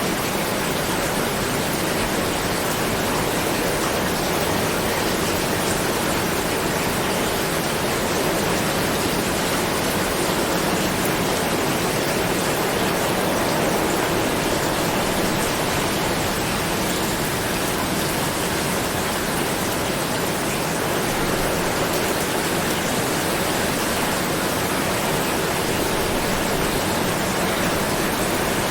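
Steady heavy rain falling, a dense even hiss with no single drops standing out.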